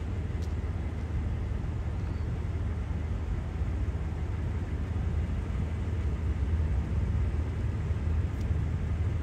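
Steady low rumble of a running car.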